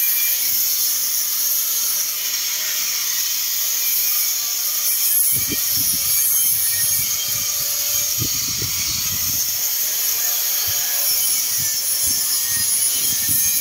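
Compressed-air paint spray gun hissing steadily as paint is sprayed onto a steel frame, with irregular low bumps in the middle.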